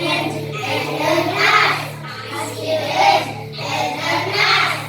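A group of young children chanting a short sentence together, with music playing underneath.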